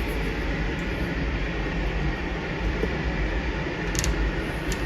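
Steady room background noise like air-conditioning hiss, with two faint clicks about four seconds in and near the end.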